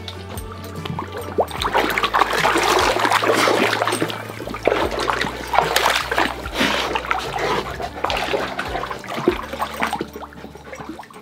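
A Rottweiler paws again and again at a toy in the water of a shallow plastic dog pool, splashing hard and irregularly. The splashing eases off near the end.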